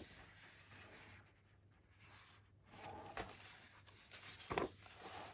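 Pages of a photo book being handled and turned, soft paper rustling and rubbing, with a couple of brief louder handling sounds about three and four and a half seconds in.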